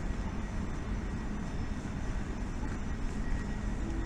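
Steady outdoor background noise with a low, unsteady rumble and no distinct event.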